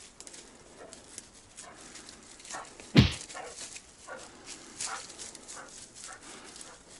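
A Kai hunting dog gives one sharp bark about three seconds in, over small scuffs and rustles of movement through dry leaf litter.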